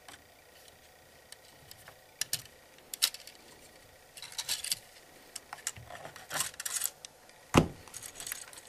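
Scattered clicks, taps and short rattles of hands handling a small DC motor in a 3D-printed plastic gearbox, with a sharper knock near the end.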